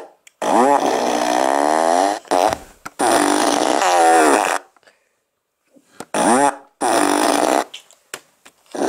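A woman's voice making long, wordless, wavering vocal sounds, four in all with short silent gaps between them.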